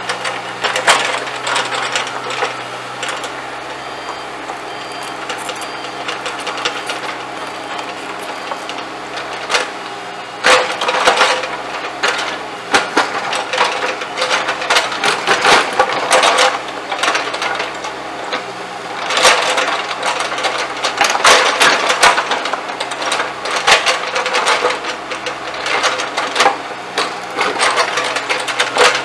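A Bobcat E35 mini excavator's diesel engine runs steadily while its bucket prises up paving bricks. Repeated bursts of clattering and scraping come as the bricks break loose and tumble onto one another, busiest in the second half.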